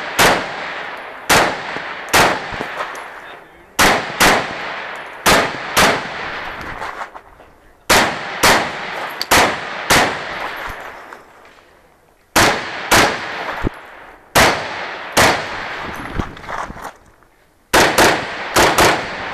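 Semi-automatic AR-style rifle firing a long string of shots, mostly in quick pairs and clusters of three or four, with gaps of about a second between groups. Each report is sharp with a ringing echo tail.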